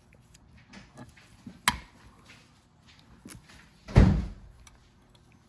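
Metal VANOS unit parts being handled and set down on a workbench: scattered light clicks, a sharp tap under two seconds in, and a heavier thud about four seconds in.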